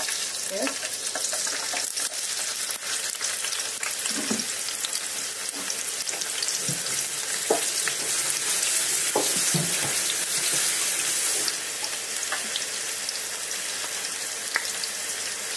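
Chopped red onions frying in hot coconut oil in a pot: a steady sizzle with small scattered pops, softening a little about three-quarters of the way through.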